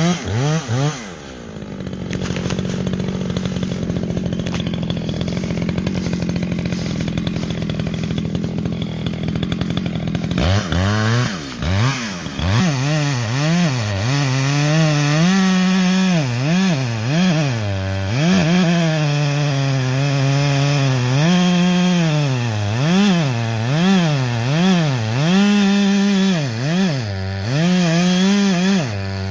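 Echo CS-620PW two-stroke chainsaw running. It holds a steady speed for about the first ten seconds, then its engine speed rises and falls again and again, as in cutting.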